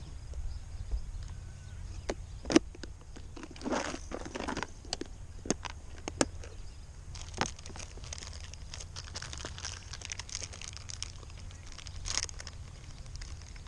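Handling of a plastic tackle box and a soft-plastic bait bag: sharp plastic clicks and knocks, the loudest about two and a half seconds in, mixed with stretches of crinkling as the bait bag is opened.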